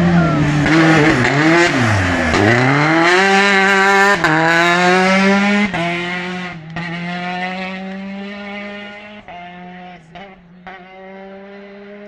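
Rally car's engine braking into a corner, revs falling with quick blips on the downshifts, then accelerating hard out of it with rising revs and several quick upshifts, fading as the car drives away.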